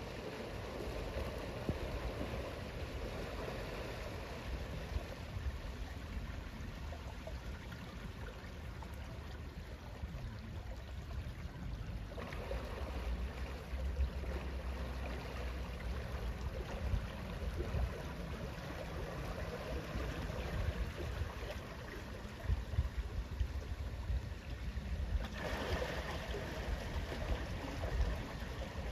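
Water swishing and lapping in the wash of a canal cruiser passing under electric motor power, with no engine note standing out, and a gusty low rumble of wind on the microphone.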